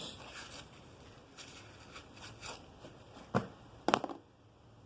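Faint rustling handling noise, then two sharp clicks about three and a half and four seconds in.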